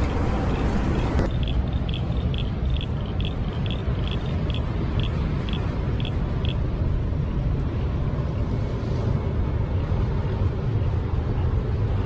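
Heavy surf breaking on a rock shelf, with wind rumbling on the microphone. From about a second in to the middle, a run of about a dozen short high pips, spaced wider as they go.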